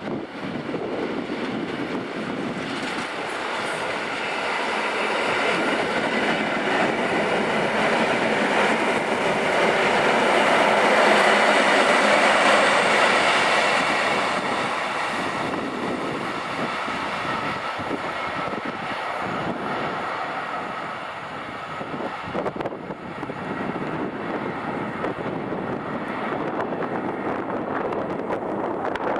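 EN57 electric multiple unit running along the track, wheels and rails rumbling with a steady high whine mixed in. The sound swells to its loudest about halfway through, then fades.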